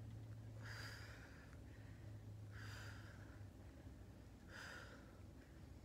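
Three faint, sharp breaths out by a woman, about two seconds apart and each under a second long: she exhales as she lifts on each oblique crunch. A steady low hum lies underneath.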